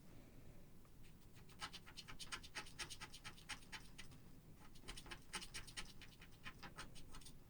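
Scratch-off lottery ticket's coating being scratched away in quick, repeated faint strokes, several a second, uncovering a prize amount.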